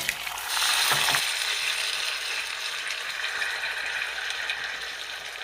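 Saucy stir-fried tofu and vegetables going into a preheated clay pot and sizzling at once, with a couple of knocks in the first second, then a steady hiss that slowly fades; the pot is hot enough to bring the dish straight back to the boil.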